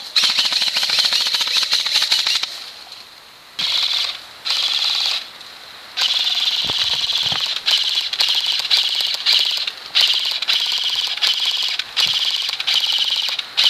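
Airsoft electric guns (AEGs) firing on full auto, a rapid mechanical rattle of the gearbox cycling. A burst of about two seconds, two short bursts, then nearly continuous fire with short breaks.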